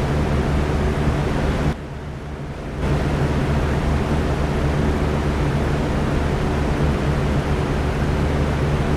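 Electric fan running steadily: an even rush of air over a low hum. About two seconds in it dips noticeably quieter for about a second, then comes back to full level.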